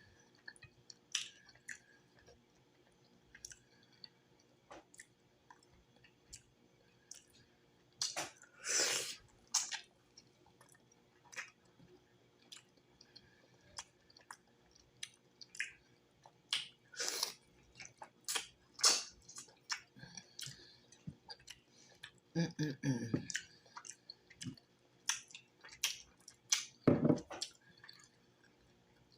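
Close, wet chewing and mouth smacking on cooked cow foot, with several louder slurps scattered through.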